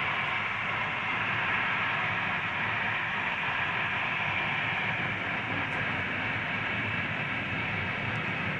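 Jet engines of a twin-engine wide-body airliner on final approach with landing gear down, a steady rushing drone.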